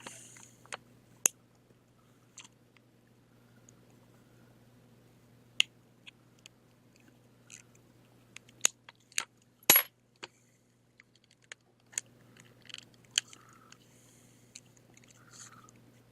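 Plastic laptop battery case being pried open along its seam: scattered sharp clicks and cracks as the shell gives, the loudest a ringing crack a little under ten seconds in.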